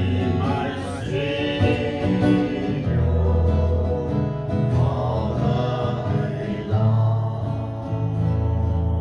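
Live gospel music: guitar playing over steady bass notes that change every second or two.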